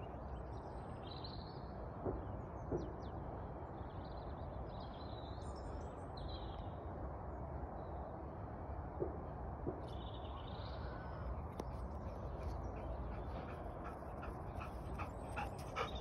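Quiet outdoor ambience: a steady low background noise, with birds calling now and then and a few faint knocks.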